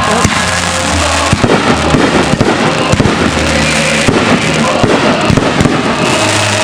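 Fireworks going off in a rapid, irregular barrage of bangs and crackles, over music with held low notes.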